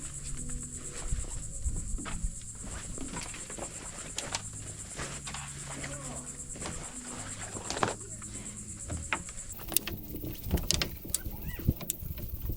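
Insects buzzing in a high, steady, finely pulsing chorus that cuts off abruptly about nine and a half seconds in, with scattered knocks and clatter.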